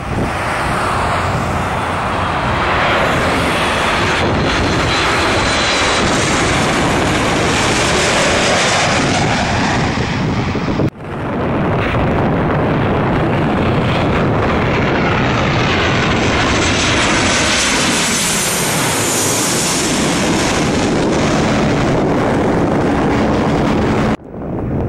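Jet airliners flying low over the airfield, a loud steady jet-engine roar with a high whine that glides in pitch as each plane passes. The sound breaks off sharply about 11 seconds in and again near the end, between separate passes.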